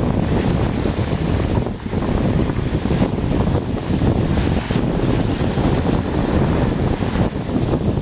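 Small waves washing up a sandy beach under a loud, steady rumble of wind on the microphone.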